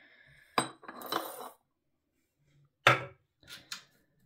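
A ceramic food bowl being handled: a click, a short rattle of dry hamster seed mix, then a louder knock of the bowl set down on a kitchen scale about three seconds in, followed by a few lighter clicks.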